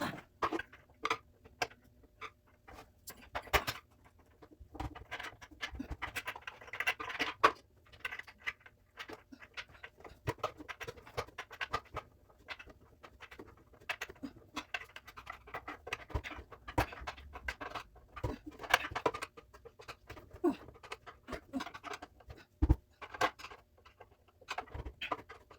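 Hand assembly of a plant stand: scattered light clicks, taps and short scraping rustles as parts are braced and small screws are fitted.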